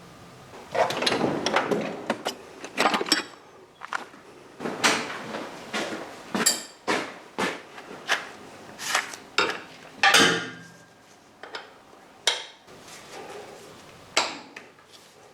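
Metal tools and parts being handled: an irregular series of sharp clanks, knocks and scrapes, about a dozen and a half, with short gaps between them.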